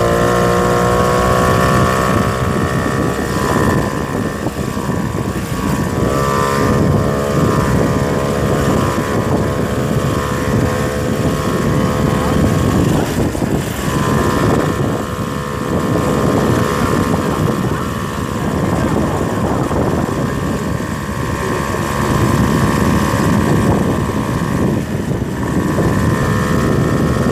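Motorcycle engine running under way on a rough dirt track; its note climbs, drops off and picks up again several times as the throttle changes.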